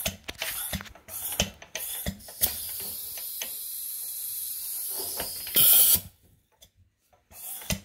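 1937 Briggs & Stratton model WM engine converted to steam, running on compressed air: a quick run of mechanical clicks for about two seconds, then a steady hiss of air. About five and a half seconds in there is a short loud blast of air, a moment of near silence, and the clicking starts again near the end.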